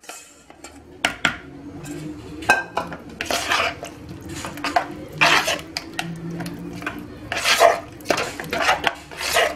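A metal spoon stirring a thick, wet quiche filling of chicken and onion in egg and cream, scraping and knocking against the sides of a plastic bowl in irregular strokes, some louder than others.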